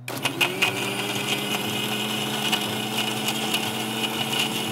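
Konka countertop blender switched on and running at full speed, blending yogurt, milk, dates and nuts. Its motor whine climbs quickly as it spins up, then holds steady, with scattered clicks throughout.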